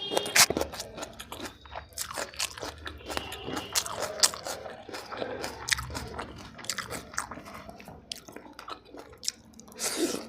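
Close-up eating sounds: a mouthful of chicken biryani being bitten and chewed, with many irregular sharp clicks and smacks.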